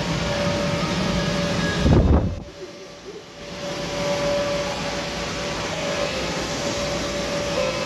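Steady hum and rush of electric air blowers keeping the bounce houses inflated. About two seconds in there is a low thump, and the noise drops away for a second or so before coming back.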